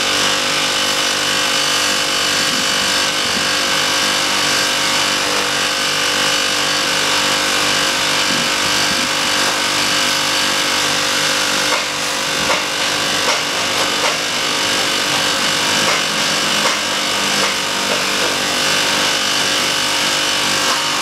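Air-conditioner compressor in a homemade ice-maker running steadily under load, with a loud, even hiss over its hum, as refrigerant is let in through the low-side gauge and charging hose.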